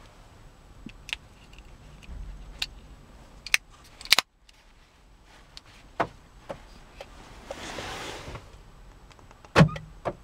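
Small plastic clicks and taps of a flip remote key shell being handled and fitted together by hand, with a few sharper snaps and a louder knock near the end.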